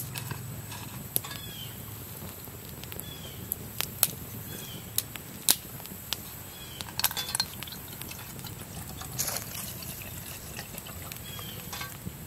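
Water poured from a plastic bottle into a small metal cook pot, with sharp crackling pops from a wood campfire scattered throughout.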